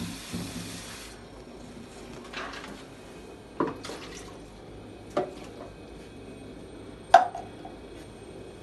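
Steady low hum of a refrigerator running, with a hiss that stops about a second in. Three or four sharp knocks and clicks come from work at the back of the fridge, the loudest near the end.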